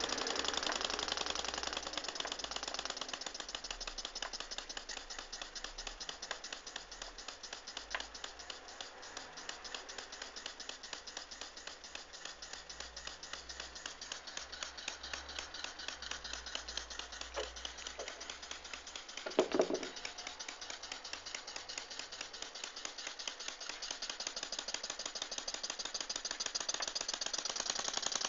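Handmade miniature live steam engine running with a rapid, very even ticking. The ticking is a little weaker in the middle and stronger near the end. A short, louder clatter comes a bit over two-thirds of the way through.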